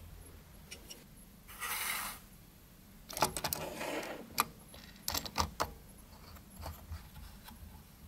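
Faint handling sounds of a bolt, washer, nut and small wrench and a wooden star knob clamp on an MDF table: scattered small metallic clicks and clinks, with a short scraping rush about a second and a half in and clusters of clicks around three to five and a half seconds.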